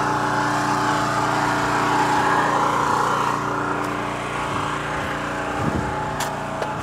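An engine running steadily at constant speed, with a couple of light knocks near the end.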